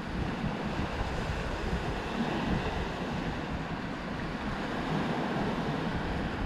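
Small waves breaking and washing up a sandy beach, a steady surf wash, with wind buffeting the microphone in a low rumble.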